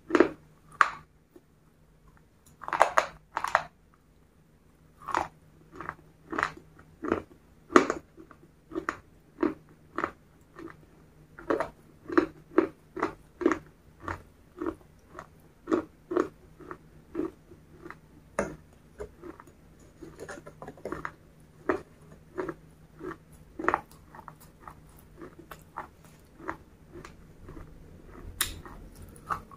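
Close-miked chewing of a crunchy chocolate-coated snack: a few loud bites near the start, then steady crunching chews about one and a half a second.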